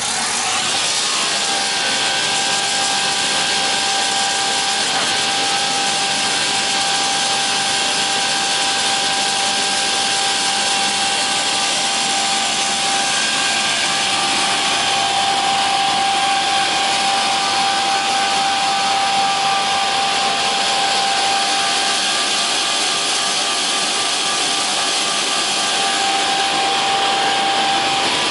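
OGAM PO-280 caterpillar-feed multi-rip saw running steadily: an even machine noise with a constant high whine from its spinning saw blades.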